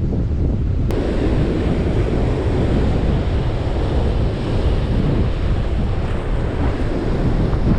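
Strong wind buffeting the microphone over the steady hiss and wash of rough surf. About a second in, the surf hiss grows suddenly louder and stays that way.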